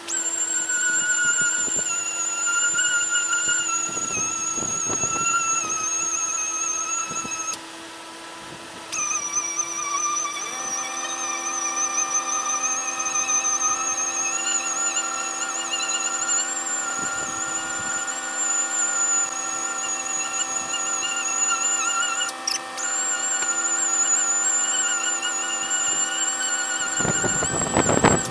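Orbital sander with 400-grit paper running against a fiberglass boat hull's gel coat, scuffing it so paint will adhere: a high-pitched whine that cuts out for about a second and a half after about seven seconds and starts again, with a brief drop about two-thirds of the way through.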